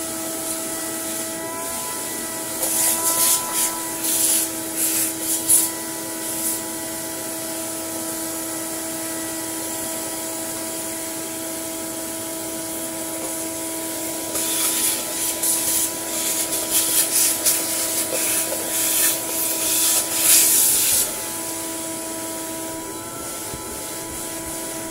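Tub vacuum cleaner running with a steady motor whine while its hand-held nozzle sucks plaster dust off dismantled vacuum parts and sound-deadening foam. There are two stretches of louder rasping hiss as the nozzle scrapes over them: one from about three to six seconds in, and a longer one from about fourteen to twenty-one seconds in.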